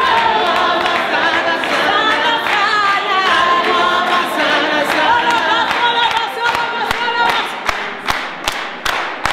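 A group of voices singing together without instruments, with rhythmic hand clapping about two to three times a second. The clapping stands out over the last few seconds as the singing thins.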